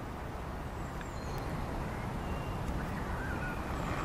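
Breath blown steadily onto a smouldering ember in a King Alfred's cake fungus (Daldinia concentrica), a low rushing noise, as the fungus glows like a coal. A bird calls faintly.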